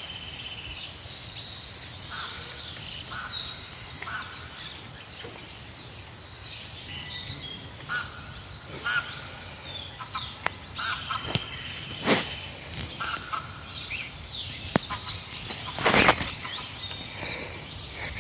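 Many birds calling and chirping, short repeated calls overlapping one another. Two short, loud crackling noises stand out, about twelve and sixteen seconds in.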